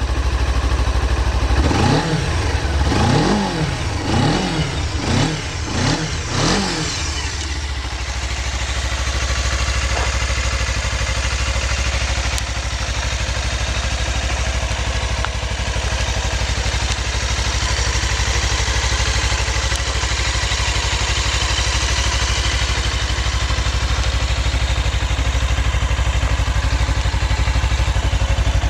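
Suzuki GW250 Inazuma's 250 cc parallel-twin engine running: it is blipped about five times in quick succession in the first seven seconds, each rev rising and falling, then settles into a steady idle.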